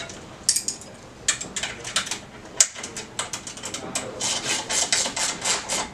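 Ratchet socket wrench clicking in short runs as 8 mm nuts are tightened on a metal hose reel frame, with a few sharper metal clicks among them. The clicks come more thickly from about four seconds in.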